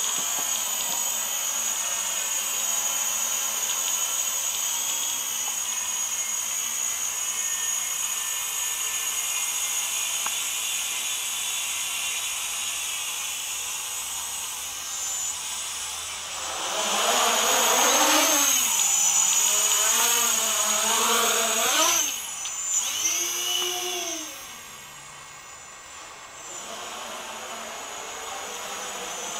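Small quadcopter's electric motors and propellers whining in flight, the pitch wavering up and down as the throttle changes. It grows louder a little past the middle, then falls away sharply about three-quarters through.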